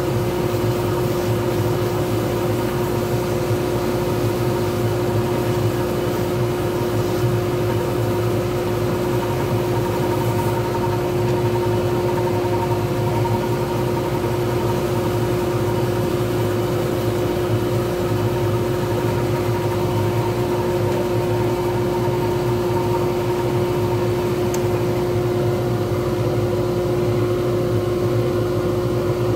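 Wood lathe running at a constant speed with a pen blank spinning on the mandrel, a steady machine hum with a few held tones and no change in speed.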